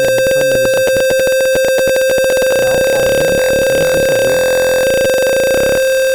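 Simulated piezo buzzer sounding a continuous steady electronic tone, the smoke detector's alarm going off because the gas sensor's smoke reading is above its threshold.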